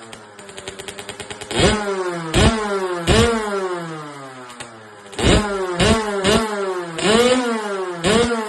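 Kawasaki KX65 dirt bike's 65cc two-stroke single-cylinder engine idling, then blipped hard about eight times, each rev climbing quickly and falling back to idle.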